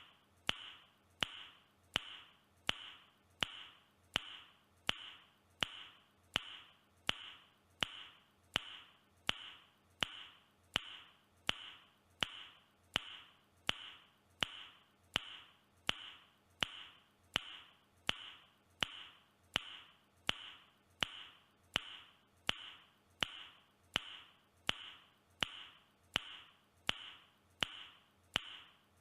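A man's tongue click, repeated at an even pace about once every three-quarters of a second. Each sharp click is followed by a brief, fading high ring.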